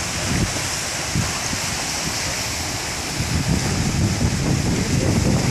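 Broken river ice and slush moving in a packed ice run, giving a steady hiss, with wind buffeting the microphone in low rumbles that grow stronger near the end.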